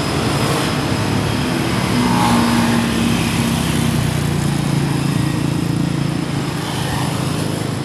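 Heavy vehicle's diesel engine running under load as it climbs the grade past the microphone, over steady road noise.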